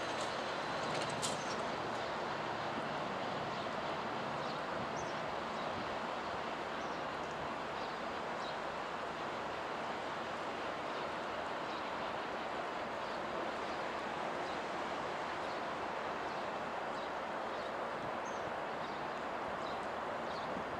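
Adif track-inspection draisine running along the rails, a steady rumble with a sharp click about a second in, and small birds chirping faintly now and then.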